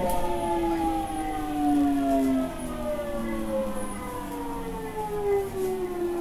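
Electric train's inverter and traction motor whine, several tones together falling slowly and steadily in pitch as the train slows under braking, over the rumble of the running gear.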